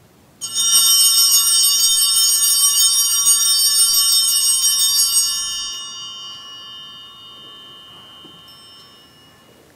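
Altar bells rung at the elevation of the chalice during the consecration: a cluster of small bells shaken for about five seconds, then ringing away slowly over the next four.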